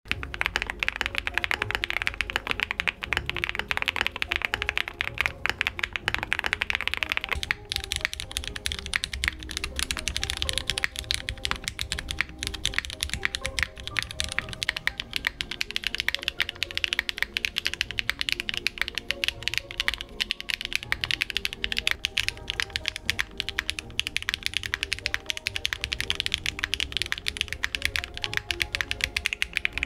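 Rapid typing on custom mechanical keyboards, a dense run of keystroke clacks, over background music. The character of the keystrokes and music changes about seven and a half seconds in.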